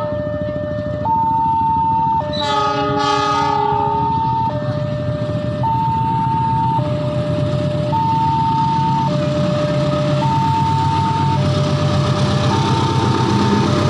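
Diesel locomotive horn blowing two short blasts about two and a half seconds in as the train departs, over a steady electronic warning alarm alternating between a high and a low tone about once a second. In the second half the locomotive's engine rumble rises as it pulls away.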